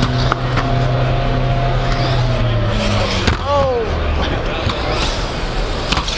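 Electric RC car whine over the steady din of a busy exhibition hall; about three seconds in, the whine drops steeply in pitch. A few short knocks come through as well.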